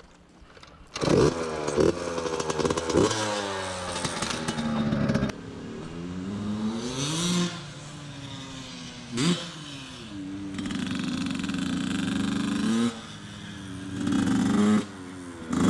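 Yamaha YZ85 two-stroke dirt bike engine. It comes in suddenly about a second in with a few sharp revs, then rises and falls in pitch as the bike is ridden off and run through the gears.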